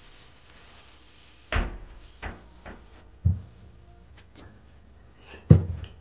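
A few separate knocks and clunks of household things being handled and set down on a kitchen countertop while it is wiped, the loudest near the end.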